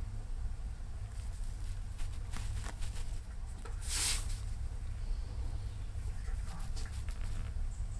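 Small scattered clicks and scratches from a Eurasian red squirrel handling and gnawing a nut, with one brief louder rustle about four seconds in. A steady low rumble runs underneath.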